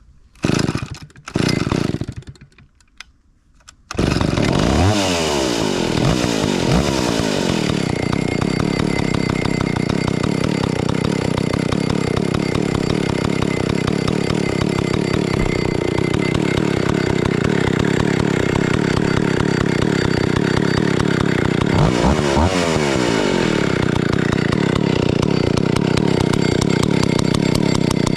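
Vintage Stihl 041 AV two-stroke chainsaw (about 61 cc) being started from cold: two short bursts in the first couple of seconds, then it catches about four seconds in and runs steadily, warming up. The throttle is revved up and down shortly after it catches and again near twenty-two seconds.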